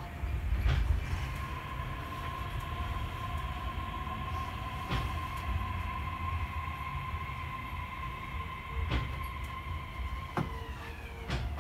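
Osaka Monorail 3000-series train running with a low rumble under a steady electric drive whine. The whine's tones fall in pitch together near the end as the train slows to a stop at the terminus, and a few sharp clicks sound along the way.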